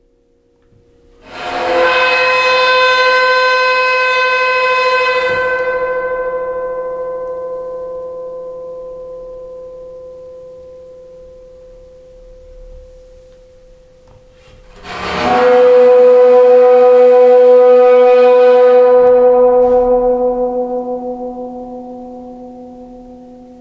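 The resonator of a Cristal euphonic instrument sounds twice as a sound effect. Each time a bright, ringing tone full of overtones swells in and then slowly dies away. The second tone, about fifteen seconds in, is louder and holds longer before it fades.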